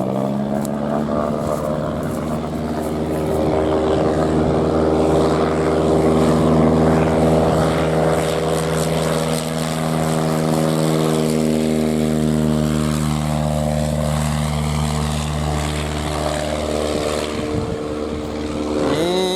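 Light aircraft's piston engine and propeller droning steadily, with the drone changing pitch near the end.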